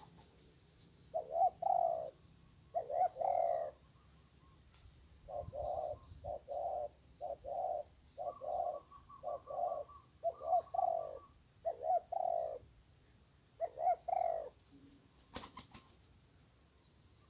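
Spotted dove cooing: a run of short phrases of low coos, each of two to several notes. A few sharp clicks come near the end.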